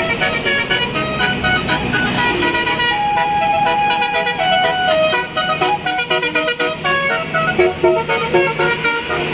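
Bus's telolet basuri musical horn playing a fast melody of short, changing notes, with the bus engine running underneath.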